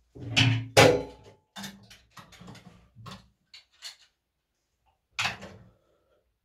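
Clanks and knocks of hard objects being handled: two loud ones about a second in, the second with a short metallic ring. Several lighter knocks follow over the next few seconds, and another clank comes about five seconds in.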